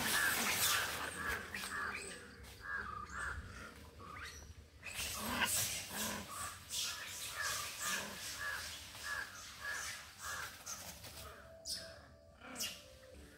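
Animal calls in a rapid repeated series, about two to three short calls a second with harsher cries among them, loudest at the start and dying away near the end.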